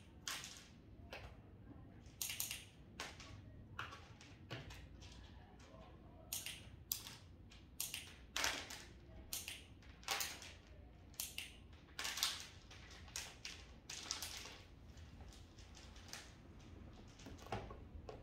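Dog crunching and chewing treats in the base of a plastic pet carrier, a run of irregular crisp crunches.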